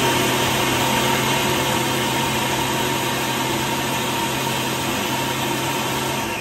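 Electric countertop food processor running steadily, its blade chopping and puréeing a tomato pesto with nuts and cheese. It is switched off near the end, and the motor begins to wind down.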